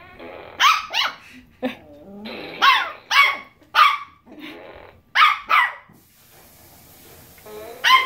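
A Cavapoo barking at a toy fart gun held close to it: short, sharp barks, mostly in quick pairs, about seven in the first six seconds and more near the end.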